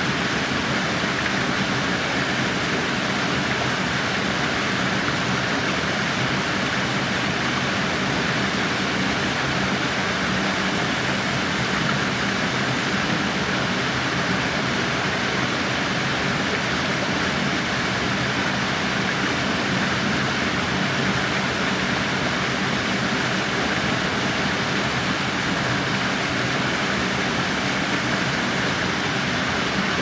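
Small waterfall cascading over rocks into a pool: a steady, even splashing of falling water that does not change.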